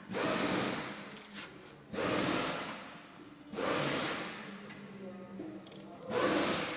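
Impact wrench run in four short bursts on a tow-hitch mounting bolt. Each burst starts suddenly and fades over about a second. The bolt spins in its mount instead of coming out.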